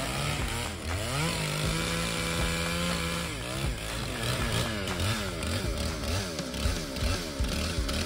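Two-stroke chainsaw cutting into a large oak trunk. Its engine note holds fairly steady early on, then rises and falls over and over, about twice a second, as the throttle is worked through the cut.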